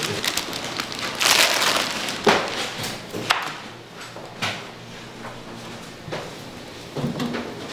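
Hand work at a peanut candy stall: a rustling scrape about a second in, then a few sharp knocks spaced about a second apart over a faint low hum.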